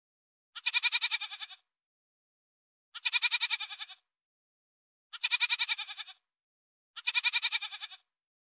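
Goat bleating: four matching quavering bleats, each about a second long and about two seconds apart, the same call repeated.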